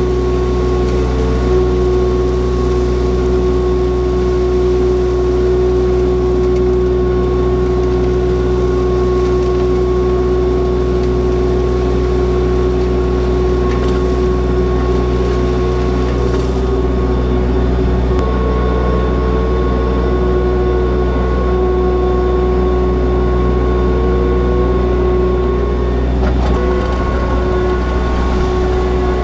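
Compact diesel tractor engine running steadily at constant throttle while pulling a box blade over gravel, with a steady hum over the engine note; the engine note shifts slightly near the end.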